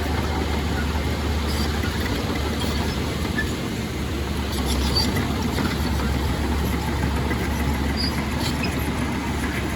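Heavy diesel engine of earthmoving machinery running steadily at a low, even speed, with a few faint scattered metallic clicks and squeaks.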